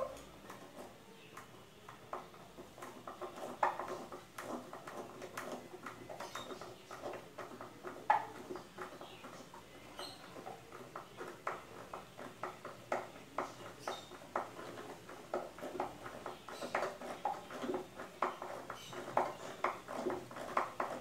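Hand screwdriver driving a screw through an aluminium angle bracket into a wooden base: a long run of irregular short clicks and creaks, a few a second, as the screw is turned.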